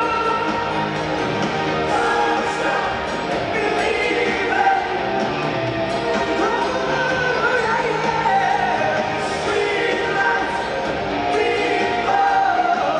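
Live rock band playing through an arena sound system, piano and band together with a singing voice carrying the melody.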